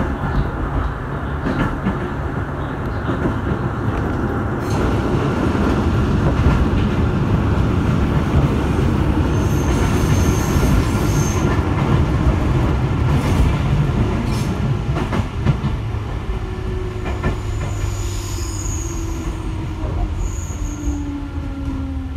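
JR 205-series electric commuter train running, heard from inside the carriage, then slowing as it pulls into a station. Two brief high wheel squeals come about halfway through and again near the end, and a falling whine sets in over the last few seconds as it brakes.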